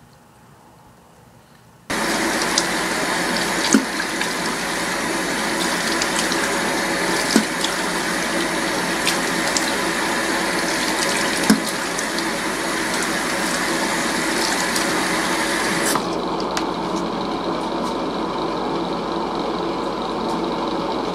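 Bathroom sink tap running steadily into the basin, starting suddenly about two seconds in, with a few light knocks. In the last few seconds the rush of water turns duller.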